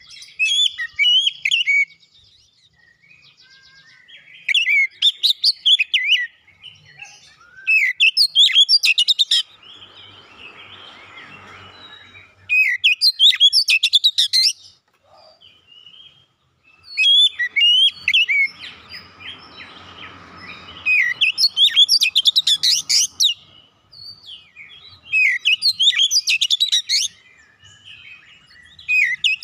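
Oriental magpie-robin singing in full voice: loud phrases of rapid, varied whistled and chattering notes, each a second or two long, repeated every few seconds.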